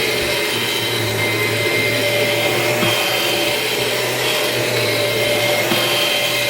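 Kirby G6 upright vacuum running steadily, a constant motor whine with several held tones over the rush of air.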